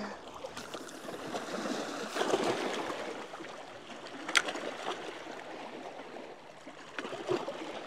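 Water lapping and sloshing against shoreline rocks in uneven swells, with one sharp click about four seconds in.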